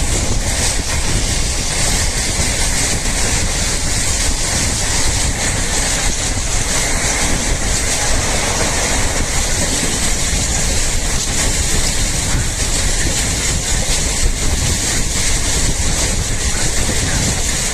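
Krishna Express passenger train running at speed: the steady running noise of wheels on rails, with wind blowing.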